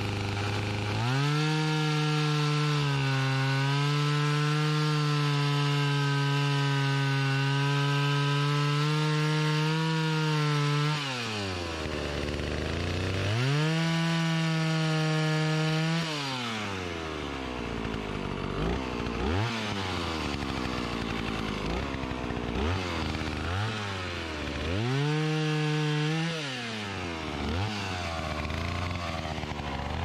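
Old Stihl 041 AV Super two-stroke chainsaw. It runs at full throttle in a cut for about ten seconds, drops to idle, and runs up again for a few seconds. It then idles with a quick blip of the throttle about every second, with one more short full-throttle burst near the end.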